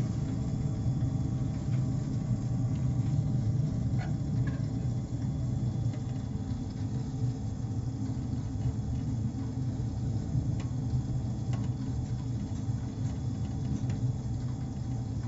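Atmos wood-gasification boiler running: a steady low rumble with a faint even hum over it.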